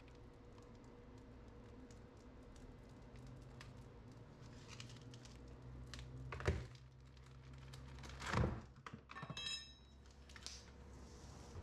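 A few dull knocks over a faint low hum, the loudest about six and a half seconds in and another about two seconds later, followed by a short high squeak.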